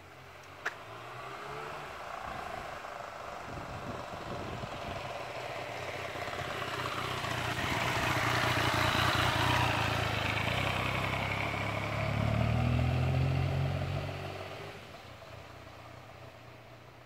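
2014 Yamaha FZ-09's 847 cc inline-three motorcycle engine running as the bike coasts in first gear, carrying the drivetrain noise the owner is trying to show. The sound grows louder toward the middle and fades after about 14 seconds, with a single sharp click about a second in.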